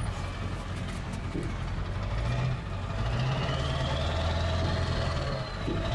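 Pickup truck engine and drivetrain running at low speed in four-wheel drive on a sandy track, heard from inside the cab as a steady low drone that gets a little louder about halfway through. A faint whine rises and then falls in pitch over the second half.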